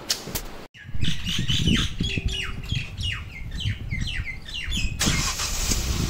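Hyundai Venue engine running at start-up with a low, uneven rattle, the starting rattle the owner says comes for 30 to 40 seconds after starting. Birds chirp over it in quick falling calls, about three a second, until about five seconds in, when a steady hiss takes over.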